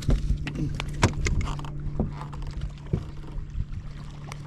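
Steady low hum of a fishing boat's motor, with scattered sharp knocks and clicks, the strongest at the start and about a second in.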